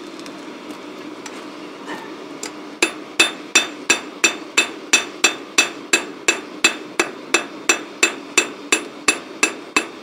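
Ball-pein hammer beating hot steel on a sledgehammer head used as an anvil: the end of a cut-off spanner being hammered out into a small spoon. A few seconds in, a steady run of sharp, ringing metal blows starts, about three a second.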